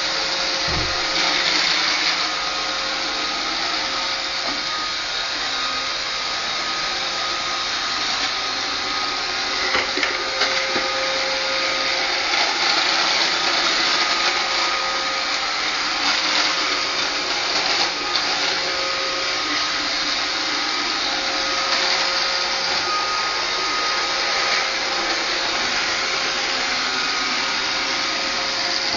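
iRobot Roomba 560 robot vacuum cleaner running: a steady whir with a constant whine, and a couple of brief knocks.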